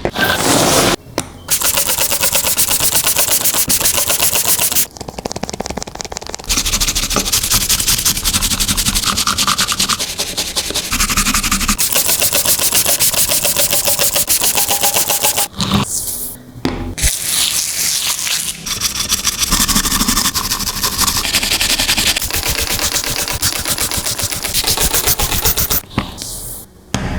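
High-pressure washer spraying a wheeled bulldozer: a loud, steady rush of water on metal with a fast, even rattle, broken by a few short gaps.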